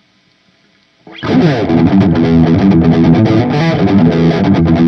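Gibson Les Paul electric guitar played through a distorted amp, starting about a second in with a run of quick notes and bends.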